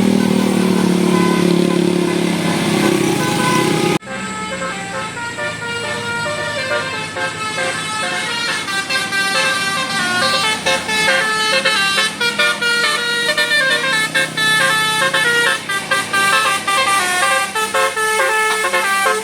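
Basuri telolet bus horn playing a quick tune of stepping notes, after a few seconds of bus and road noise that break off abruptly about four seconds in.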